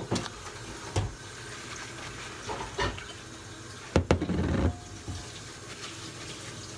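Mushroom caps being handled over a small glass bowl with a paper towel: a few light knocks, then a louder clatter about four seconds in, over a steady faint hiss.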